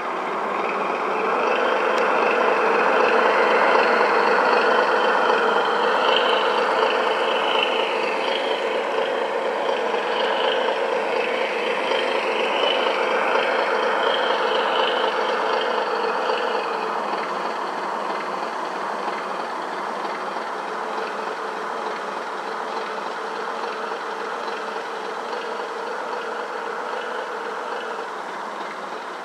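Radio-controlled model boats running on the water: a steady mechanical hum with a wavering whine over it, swelling in the first few seconds and easing off gradually after the middle.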